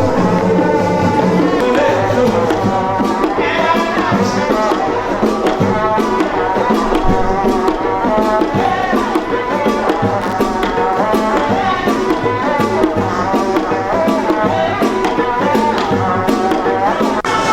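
A cultural troupe performing traditional music on drums and rattles, a dense and steady rhythm. Near the end it gives way to brassier music.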